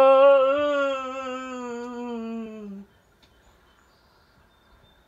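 A voice singing one long held note that sinks slightly in pitch, gets quieter and stops almost three seconds in.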